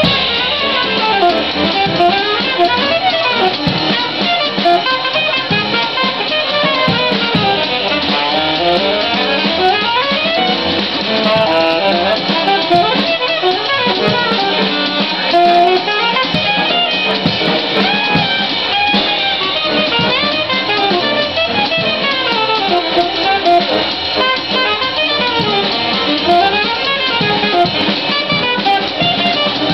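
Live small-group jazz: a saxophone plays quick, running melodic lines over walking upright bass and drum kit.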